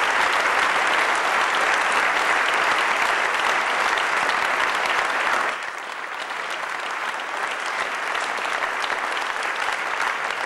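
A large audience applauding, many hands clapping together in a hall. The applause drops to a lower level about halfway through and carries on steadily.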